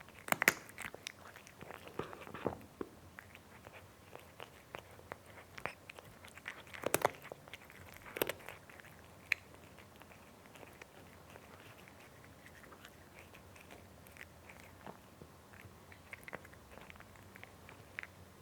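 Cat eating: irregular small bites and chewing, busiest in the first few seconds, with two louder bites a little before the middle, then sparser and quieter.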